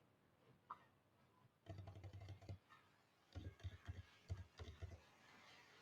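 Faint typing on a computer keyboard: a short run of keystrokes about two seconds in, and a longer run from about three and a half seconds.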